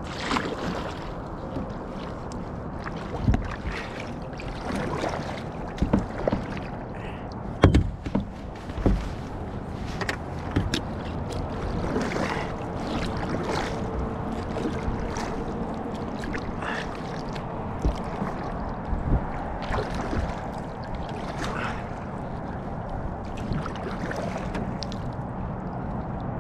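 Kayak paddling: the paddle blades dip and splash in the water with dripping between strokes, over a steady wash of water. There are a few sharper knocks in the first ten seconds.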